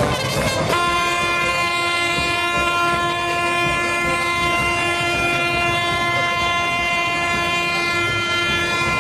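A boat's horn sounding one long, unbroken blast on a single steady pitch, starting about a second in and held throughout.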